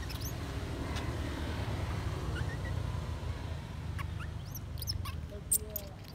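A few short, high animal squeaks or chirps, some rising and some falling in pitch, scattered over a steady low rumble, with one sharp click near the end.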